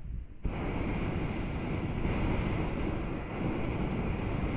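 Hot-air balloon's propane burner firing: a steady rushing blast that switches on abruptly about half a second in.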